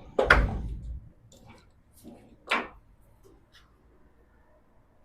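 A loud clank about a quarter second in that dies away over most of a second, then a sharper, shorter knock about two and a half seconds in, with a few faint ticks between: tools and metal parts being handled while the car's bumper brackets are unbolted.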